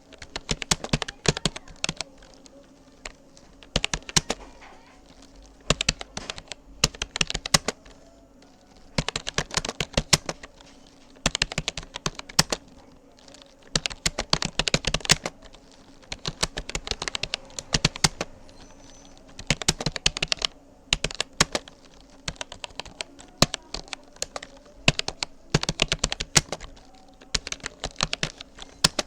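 Rapoo computer keyboard being typed on in quick runs of keystrokes, bursts of a second or two broken by short pauses.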